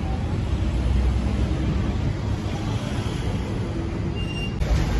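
Steady low rumble of background noise, changing abruptly to a brighter hiss near the end.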